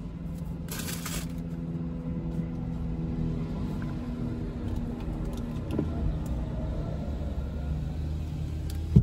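Car engine idling, heard from inside the cabin as a steady low hum. A brief rustle comes about a second in, and there is a sharp click at the very end.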